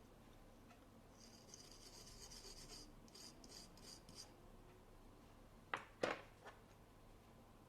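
Faint scraping and rubbing of a small metal hand tool on a circuit board while parts are being removed: a stretch of scratchy strokes, then a few short ones, and about two thirds of the way in two or three sharp clicks.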